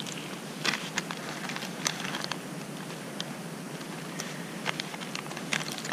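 Scattered soft clicks and crackles over a steady hiss: a pocket knife and a plastic food packet being handled while cream cheese is spread on a wrap.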